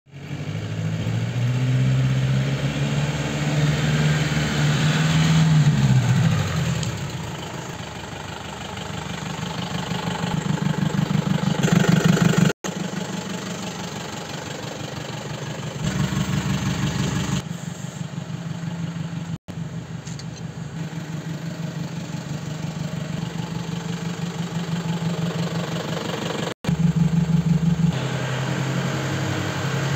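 Tata LPT 407 light truck's four-cylinder diesel engine running, its revs rising and falling over the first several seconds, then running more steadily. The sound drops out abruptly three times for a moment.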